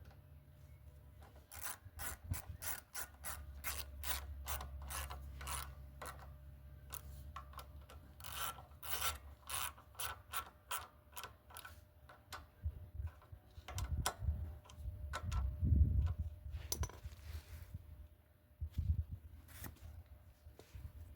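Hand tools and metal parts at work while a carburetor is fitted to a lawnmower engine: a run of quick clicking, rasping strokes, about three a second, for roughly ten seconds, then heavier knocks and handling thumps.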